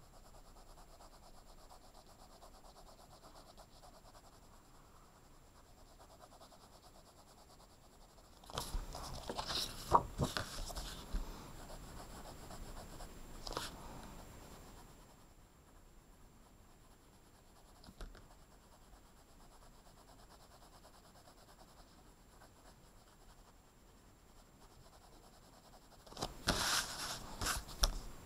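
A blue coloured pencil shading on paper, a faint steady scratching of soft strokes. Twice there is a louder stretch of rustling with a few knocks as the sheet of paper is shifted on the table: once about a third of the way in, lasting several seconds, and again near the end.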